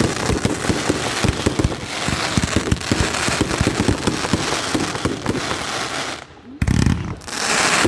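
Category F2 firework battery (Funke 'Paranoid') firing: a dense, rapid run of sharp cracks and bangs. After a brief lull about six seconds in, two louder bursts follow.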